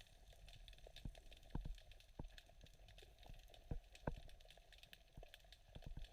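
Near silence with a few faint, scattered short clicks at uneven intervals.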